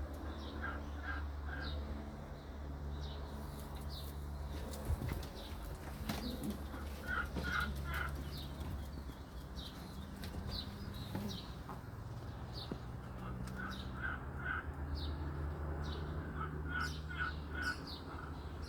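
Birds chirping and calling in short repeated groups of notes over a steady low hum, with one sharp knock about five seconds in.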